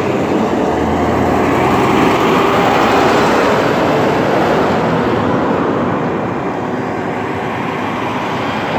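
Diesel garbage truck passing close by: engine and tyre noise building to a peak about two to three seconds in, then slowly fading. A tractor-trailer rolls past near the end.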